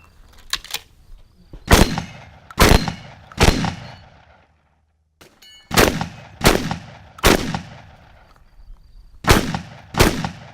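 A semi-automatic shotgun fired eight times in quick groups of three, three and two, the shots within each group about three-quarters of a second apart, each with a short echoing tail. The sound drops out completely for a moment between the first and second groups.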